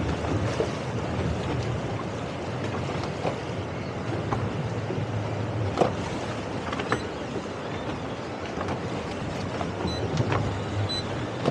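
Towboat's engine running steadily under way, a low hum under the rush of wind and water, with a few short knocks from the hull meeting the chop.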